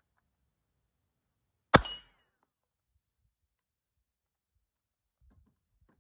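A single suppressed shot of subsonic ammunition through a JK Armament MST suppressor, about two seconds in. It merges with the clang of the bullet hitting the steel spinning target, which rings briefly. A few faint knocks come near the end.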